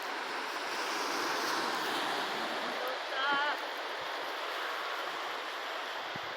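Sea waves washing on the shore: a steady rushing hiss that swells a little about a second in. A short wavering call sounds about three seconds in.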